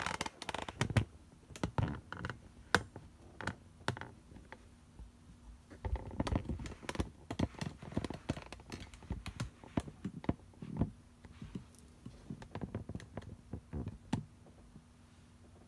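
Irregular clicks, taps and knocks from hands handling things on a hard tabletop and shifting the camera, a few of them sharp and loud, coming thickest a little past the middle.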